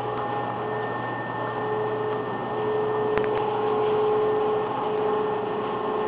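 Steady machine hum of refrigerated display cases and store ventilation, with several held tones running through it. Two quick clicks come about three seconds in.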